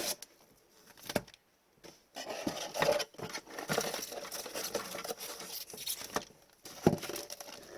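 A cardboard trading-card box and its wrapped packs being handled and opened by hand: rustling, crinkling and light clicks and taps, starting about two seconds in after a quiet moment.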